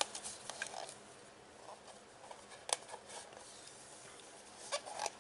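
Faint handling noises from masking a motorcycle mirror housing: scattered soft clicks and taps as masking tape is pressed around its edge, with one sharper click near the middle and a few more near the end.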